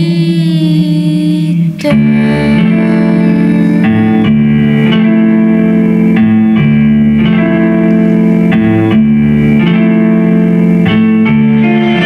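A girl's voice holds a sung note with vibrato over grand piano chords, breaking off about two seconds in. The piano then plays on alone, a slow instrumental passage of changing chords.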